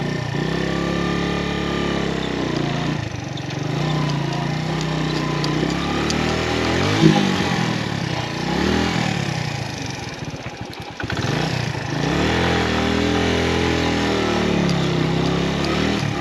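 Suzuki GS150 motorcycle's single-cylinder four-stroke engine revving up and down repeatedly under load as it is ridden over a large rock on a rough track. The revs drop off briefly about ten seconds in, then rise again.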